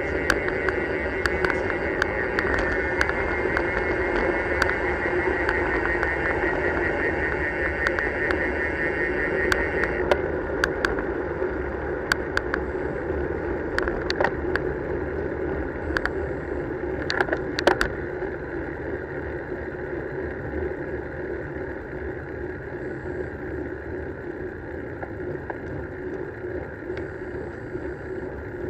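Bicycle riding along a paved road: wind on the camera microphone and tyre and road noise, with a high buzz for about the first ten seconds. Several sharp knocks come between about twelve and eighteen seconds in, and the noise eases off after that.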